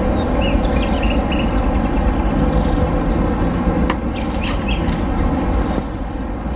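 A loud, steady low rumble of background noise, with short bird chirps over it in the first second or so and a few sharp clicks about four to five seconds in.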